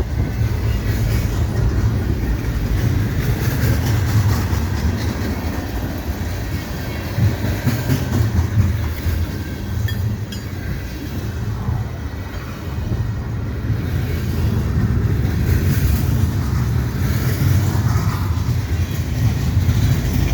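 Long Canadian National freight train of hopper cars rolling past close by: a steady, heavy rumble of wheels on rail, with rattling from the cars.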